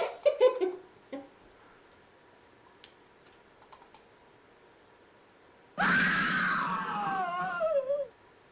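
A woman's scream sound effect: one shrill, harsh cry of about two seconds that falls in pitch, coming after a few faint clicks.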